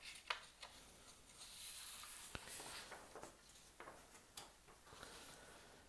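Faint rustling of a paper sheet being handled and turned over, with a few light taps.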